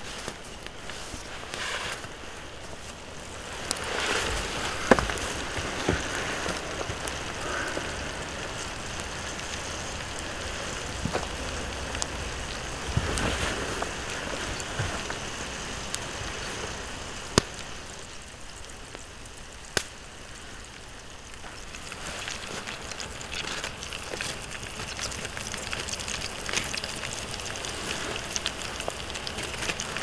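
Wood campfire burning: a steady hiss with crackling and a handful of sharp pops.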